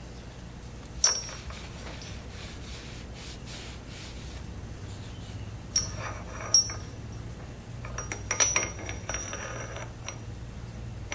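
Small steel parts and tools clinking on a metal workbench, a sharp clink about a second in, two more past the middle and a quick cluster later, each with a short high ring, with a cloth rubbing over a steel lathe spindle between them. A steady low hum runs underneath.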